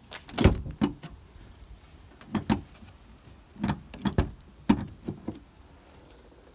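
A series of sharp clunks and knocks, about eight spread over five seconds, as the bonnet of a BMW X5 is released and lifted to open the engine bay.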